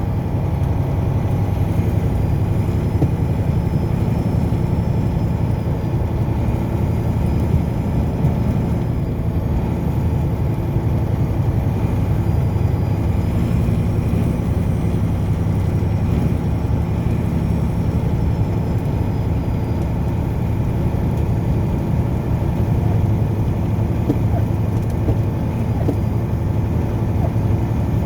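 Steady road and engine noise of a car driving: a constant low rumble of tyres and engine with no change in pace.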